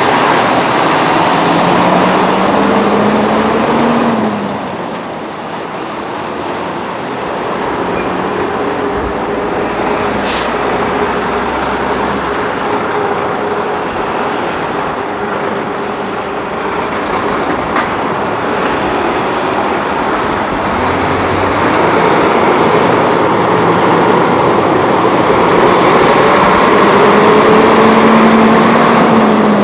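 Heavy diesel truck engine revving up under load, its pitch climbing and then falling away as it shifts: once at the start and again near the end. In between the vehicle runs steadily and a faint high beeping comes and goes.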